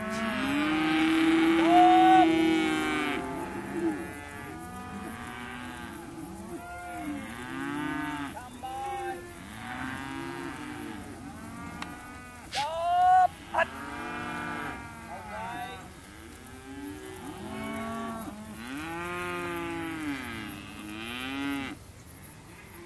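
Weaner calves bawling: many overlapping moos, one after another, loudest in the first few seconds and in a sharp, higher-pitched call about halfway through.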